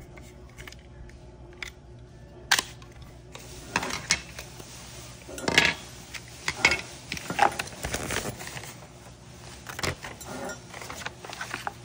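Hard plastic pieces of a doorbell mount and their packaging being handled: irregular clicks, taps and rustles, with a sharp knock about two and a half seconds in and a busier run of handling noise in the middle.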